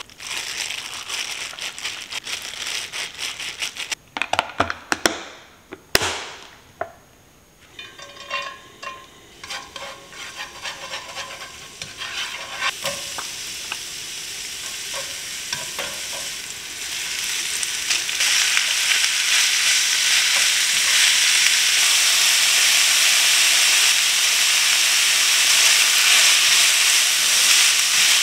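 Knocks and clatter in the first few seconds, then minced garlic sizzling in oil in a stainless steel frying pan, with chopsticks tapping as it is stirred. From about two-thirds through, a louder, dense, steady sizzle as seaweed stems and carrot strips are stir-fried.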